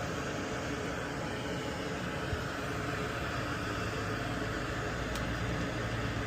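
Steady fan-like whooshing noise with a low hum underneath, and one small click about two seconds in.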